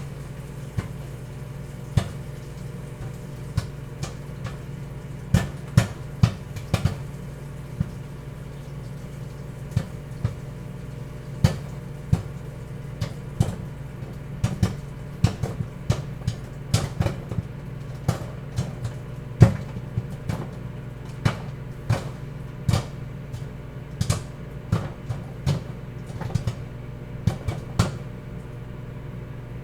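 Popcorn popping inside a running microwave oven: sharp, irregular pops over the oven's steady low hum, the pops growing more frequent after the first few seconds as the kernels heat through.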